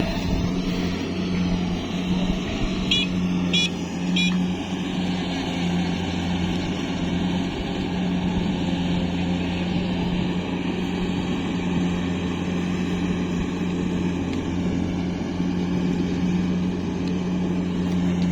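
Diesel engine of a rice-field farm machine running steadily at a constant speed. Three short high chirps come about three to four seconds in.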